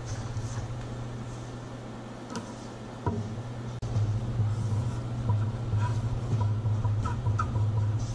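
Low rumble of an office room, with sheets of paper being handled and then, from about three seconds in, a pen writing on paper on a desk, with soft scratches and knocks.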